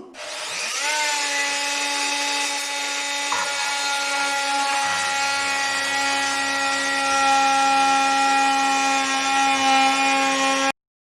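Bosch PMF 2000 CE corded oscillating multi-tool switched on, its pitch rising for about a second, then running steadily with its saw blade cutting wood; a lower rumble joins about three seconds in. The tool is switched off abruptly near the end.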